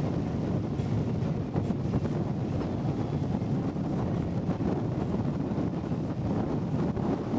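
Wind blowing across the camera microphone on the deck of a moving ship: a steady low rush of noise with no distinct events.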